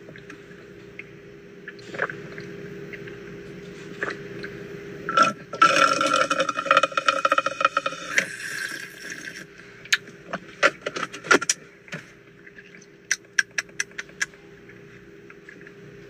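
Loud slurping through a drinking straw for about four seconds, then a quick run of sharp clicks, over a steady hum.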